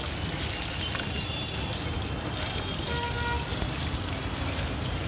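Chicken drumsticks deep-frying in a large iron kadai of hot oil: a steady sizzle and bubbling, with a low rumble underneath.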